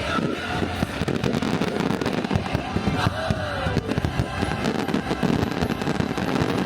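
Fireworks crackling and popping in a dense, continuous barrage.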